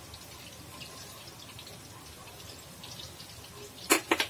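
Faint steady hiss as oil heats in a kadai on the gas stove, then three quick sharp knocks close together near the end.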